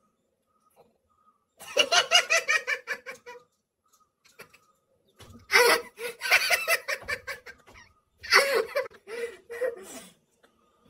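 A man laughing in three bouts of rapid ha-ha-ha pulses: the first about two seconds in, the others around five and eight seconds in.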